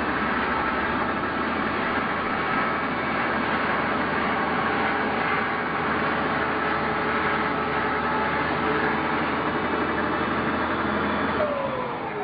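DeWalt miter saw's motor running with the blade spinning freely, a steady whine with no cut in it. Near the end the pitch falls as the blade spins down.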